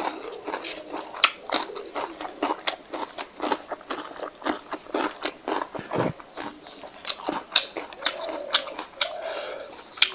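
A person chewing a mouthful of pork fry and rice with their mouth full: a quick, irregular run of wet clicks.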